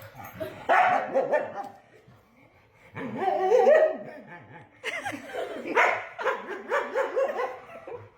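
A dog barking in bursts, ending in a quick run of short barks.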